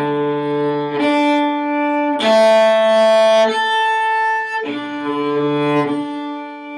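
Cello played with the bow: a slow melody of long sustained notes, changing about once a second.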